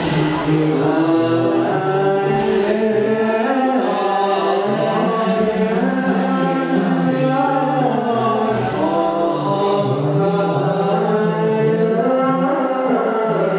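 A group of voices chanting Buddhist scripture in unison: a slow, sung chant of long held notes that step between pitches, without pause.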